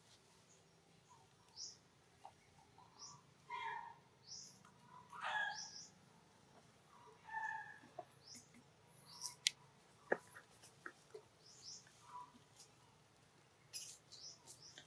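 Newborn baby monkey giving faint short squeaks and whimpers, with quick high chirps scattered throughout and a few sharp clicks about two-thirds of the way in.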